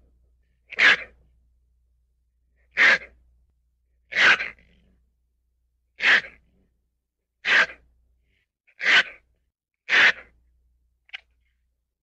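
Ferret sneezing: seven short, sharp sneezes spaced about a second and a half apart, then a small faint one near the end.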